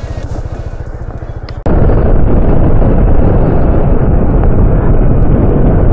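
Background music with a steady beat for about a second and a half, then a sudden cut to loud wind rush on the microphone as the Honda ADV 160 scooter rides along a paved road.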